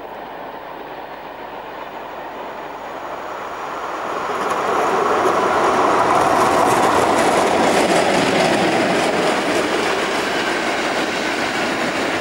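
Express train hauled by a DB class 116 electric locomotive passing close by: the noise of the wheels on the rails builds as it approaches, is loudest about five to nine seconds in as the locomotive goes past, and eases a little as the coaches roll by.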